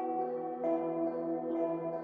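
Background music: soft ringing bell-like notes over sustained held tones.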